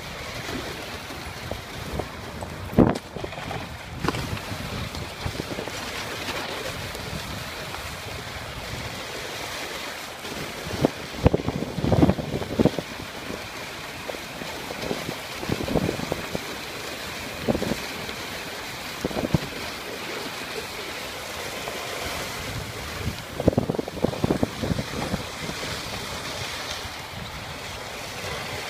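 Steady rushing of a dog sled moving over a snowy trail, runners on snow with wind on the microphone. Short knocks and thumps stand out now and then, bunched about halfway through and again toward the end.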